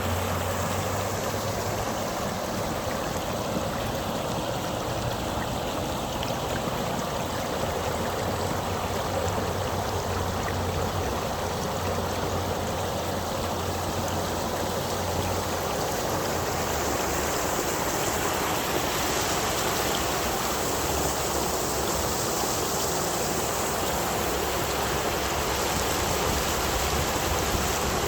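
Waterfall: a steady rush of falling water, with a low rumble underneath.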